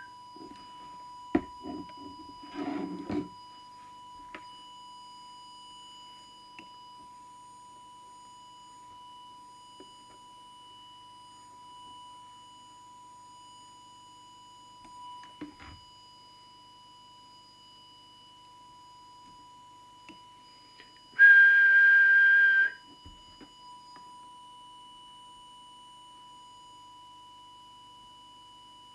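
A person whistles one steady high note for about a second and a half, a little past two-thirds of the way in: a whistle test into a CB radio's microphone to check transmit deviation. Under it runs a faint steady test tone, and there are a few light clicks and knocks near the start.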